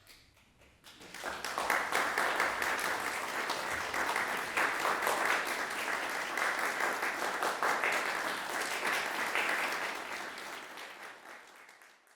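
Audience applauding after a performance. The clapping swells about a second in, holds steady, then dies away near the end.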